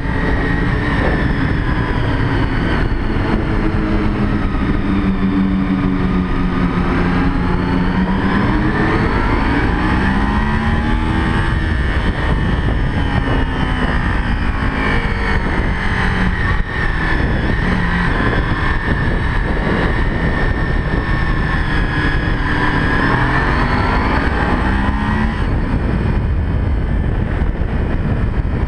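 Sport motorcycle engine heard from on board, its pitch climbing and dropping again and again as the rider accelerates and eases off through the bends, over a steady rush of wind and road noise.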